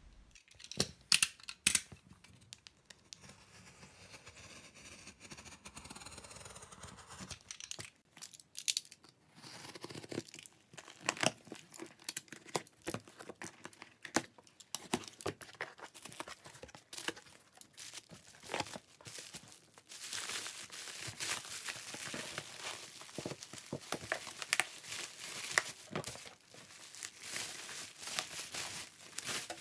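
Packaging being opened and unwrapped by hand: scattered taps and clicks of handling with crinkling and tearing, the crinkling growing denser and louder about two thirds of the way through.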